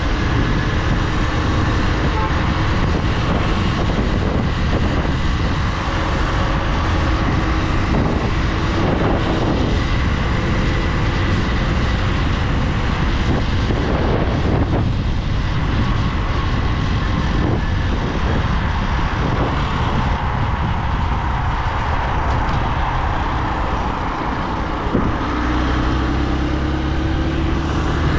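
Motorcycle engine running while riding, under a steady rush of noise; near the end the engine pitch rises as it speeds up.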